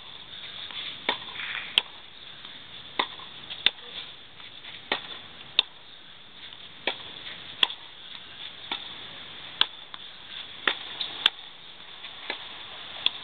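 Tennis rally on a clay court: sharp pops of a racket striking the ball and of the ball bouncing, coming about once a second, often in quick pairs.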